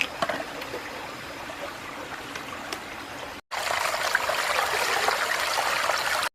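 Steady rushing noise like running water from a stream. It cuts out briefly about three and a half seconds in and comes back louder.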